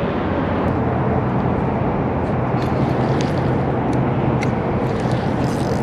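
Steady outdoor rumbling noise with a low hum underneath and a few faint clicks.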